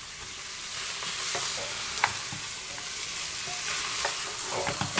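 Beef rib pieces sizzling as they brown in hot fat with onion and garlic in an aluminium pressure cooker, stirred with a wooden spoon. A few sharp knocks cut through the steady sizzle, the loudest about two seconds in.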